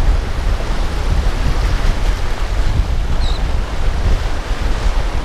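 Wind buffeting the microphone over a steady rush of waves and moving water.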